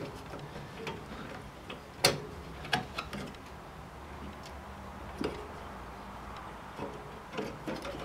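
A few scattered clicks and light taps, the sharpest about two seconds in, as hands work a cable connector loose from the disk backplane inside a steel server chassis.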